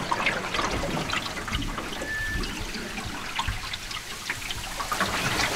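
Shallow river water trickling and lapping, with many small drips and splashes. There is a brief high peep about two seconds in.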